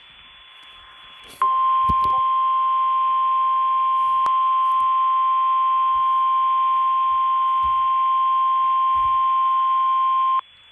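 Emergency Alert System warning alarm tone, the single steady 1050 Hz tone of NOAA Weather Radio, heard through a radio. It is one long high beep that starts about a second and a half in, holds for about nine seconds and cuts off sharply. It signals the start of a severe thunderstorm warning.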